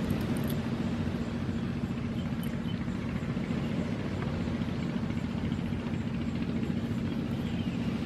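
Steady low mechanical hum with a constant drone and rumble beneath, like an engine running.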